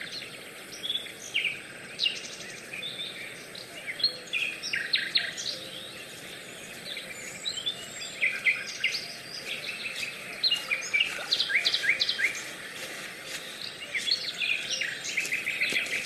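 Several songbirds singing in woodland, with many short chirps and quick trills, some notes repeated rapidly, over a steady outdoor hiss.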